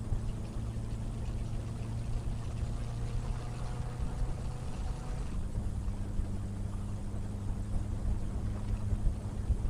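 Benelli BN600i motorcycle on the move: wind rumbling over the microphone, louder than the inline-four's exhaust note. The engine tone holds steady, then drops a little about five seconds in.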